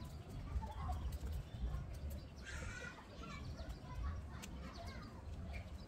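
Outdoor ambience: a low wind rumble on the microphone with a few faint bird chirps and calls, one of them stronger about halfway through.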